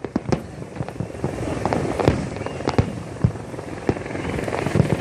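Fireworks display: aerial shells bursting in an irregular string of bangs, over a steady rumble of noise.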